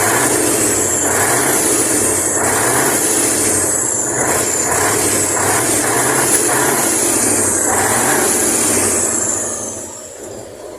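Fiat 190-38 truck's V8 engine, still cold, being revved in repeated swells through a three-outlet exhaust, with a high whistle that rises and falls with each rev. About a second before the end it drops back to a much quieter running.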